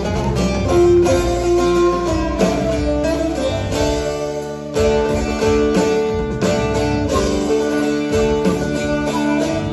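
Live Turkish folk music: a bağlama (long-necked saz) and other string instruments playing a zeybek dance tune, with plucked notes over held tones.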